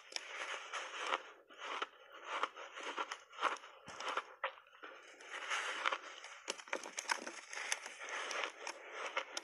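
Crunching and chewing of refrozen purple block ice coated in matcha milk powder, in repeated irregular bites with sharp cracks as the ice breaks between the teeth.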